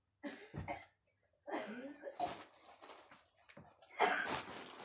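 Saree cloth rustling and swishing as folded sarees are handled, loudest about four seconds in when a fabric is swept up. There are soft breath or voice sounds in between.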